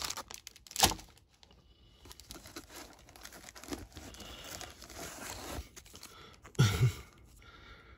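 Plastic packaging crinkling and rustling as a bagged graded card slab is handled and drawn out of a cardboard box, with a sharp click about a second in.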